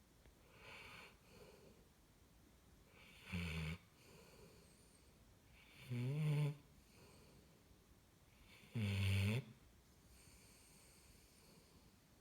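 Black Labrador retriever snoring very loudly in its sleep. There are three loud snores about two and a half to three seconds apart, each lasting about half a second, with softer breaths between them.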